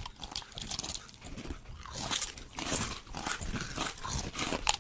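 A run of irregular crunching and rustling clicks.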